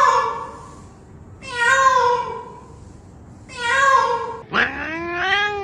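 Domestic cat meowing: two separate meows about two seconds apart, then near the end a longer call that rises in pitch and is held.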